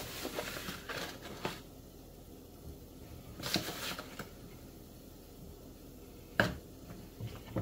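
Plastic bag of flour crinkling in short rustles as flour is scooped out: a few in the first second and a half, a louder one about three and a half seconds in. Then a single sharp knock about six seconds in.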